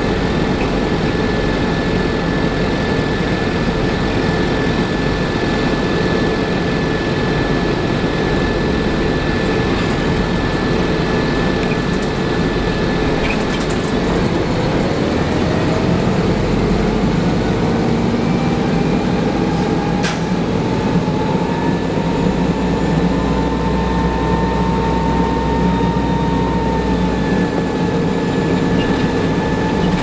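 Inside a 1994 TMC RTS transit bus: its Detroit Diesel Series 50 engine and Allison VR-731 transmission run steadily with a whine, then about halfway through a whine rises in pitch as the bus accelerates, holds, and begins to fall near the end. The unbroken rising whine goes with the transmission's torque-converter lock-up not engaging, which the uploader calls a hybrid effect. A single sharp click about two-thirds through.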